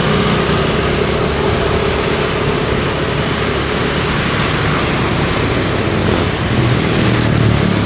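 Motorcycle riding steadily along a street, its engine running under a constant rush of wind and road noise.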